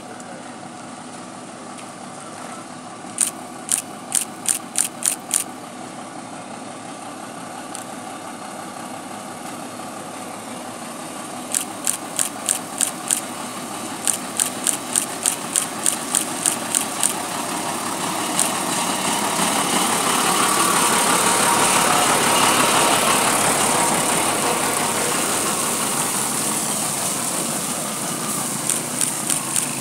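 Foton water tanker truck's diesel engine running as the truck draws close, growing louder past the middle, with a rising hiss of water spraying from its rear spray bar onto the dirt road. Several runs of short sharp ticks, about three or four a second, come and go through the first half and again near the end.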